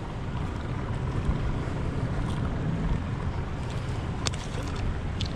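Steady wind buffeting the microphone over choppy water around a small boat in rough conditions, with a faint click or two near the end.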